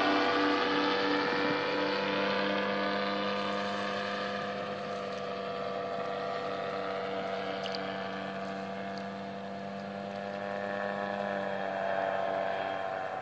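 Side-by-side gyrocopter in flight: its engine and pusher propeller give a steady drone with a faint regular pulsing beat. It fades as the gyrocopter draws away, then swells a little near the end.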